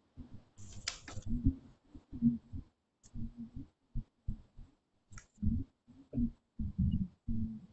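Hands handling and folding sheets of paper: a few brief paper rustles, the clearest about a second in, over irregular soft low thumps.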